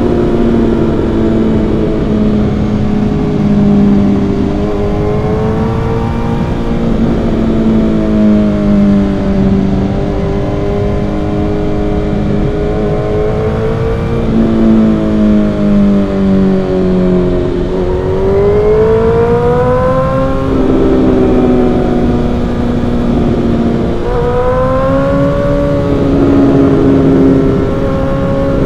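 Suzuki GSX-R1000's inline-four engine on the move, its pitch rising and falling as the rider opens and closes the throttle, with a few sudden drops in pitch in the second half.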